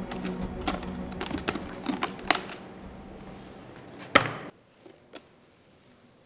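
Scattered metallic clicks and rattles as an aluminium briefcase is handled, then one loud knock with a short ring about four seconds in as the case is set down, followed by two faint clicks. A low sustained drone fades out underneath during the first four seconds.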